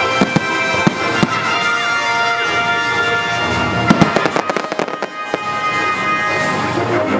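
Fireworks bursting and crackling in a string of sharp bangs, densest about four to five seconds in, over steady music playing.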